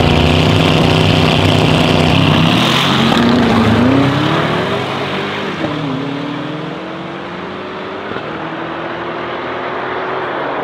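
Two twin-turbo V8 cars, a BRABUS 800 Mercedes-AMG E63 S and a BMW M8 Competition, launching side by side in a drag race. The engines are held at steady revs on the line for about four seconds, then the pitch climbs as they accelerate. It dips at a gear change about five and a half seconds in and rises again as the cars pull away and grow fainter.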